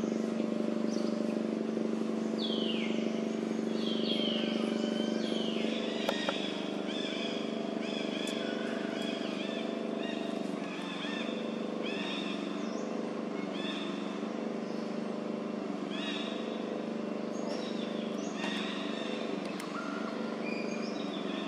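Outdoor ambience: a steady low engine-like hum under repeated high chirping calls, some of them falling in pitch.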